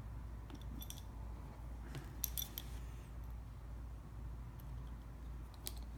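Faint, scattered light clicks and ticks of a small precision screwdriver and a tiny screw being driven into an iPhone 6's metal internal shield, over a low steady hum.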